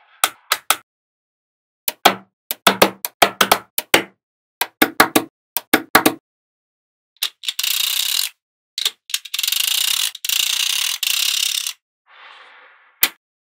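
Small magnetic balls clicking and snapping together in quick, irregular clicks. These are followed by about four seconds of steady hiss, then one more click near the end.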